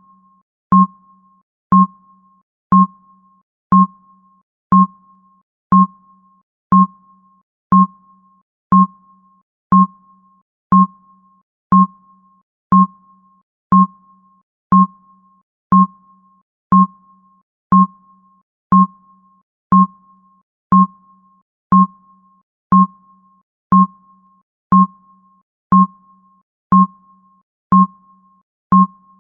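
Countdown timer sound effect: a short electronic blip once every second, each starting sharply and fading quickly, in a steady beat.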